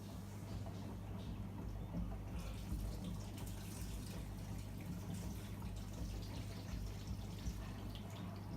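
AEG Lavamat Lavalogic 1420 washing machine rinsing: water splashing and running in the drum in an irregular stream of small splashes, over a steady low hum.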